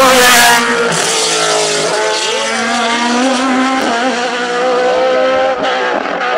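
Hill-climb racing car engine at high revs, loudest as the car passes close at the start, then running on with its pitch repeatedly rising and dropping as it pulls away.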